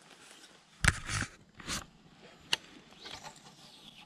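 A few close handling knocks and rustles from fishing gear, with sharp clicks about one second and two and a half seconds in.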